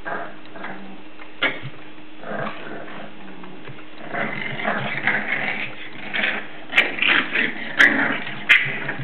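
Seven-week-old English Bulldog puppies play-fighting: short puppy growls and whiny yips mixed with scuffling, coming thicker and louder from about halfway through. There are three sharp clicks or knocks near the end.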